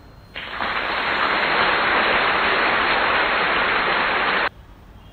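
A burst of steady hiss like static, starting suddenly a moment in and cutting off sharply about four and a half seconds in.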